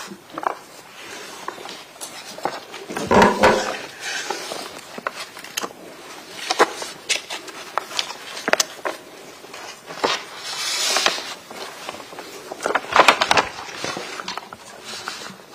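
Rustling, clicks and light knocks of handling noise on a microphone, with short louder noises about three seconds in and again about thirteen seconds in.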